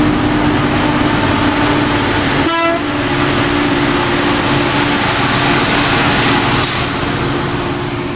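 Steady engine drone and road noise of a vehicle on the highway, heard from a dashcam, with a single short horn toot about two and a half seconds in and a brief hiss near the end.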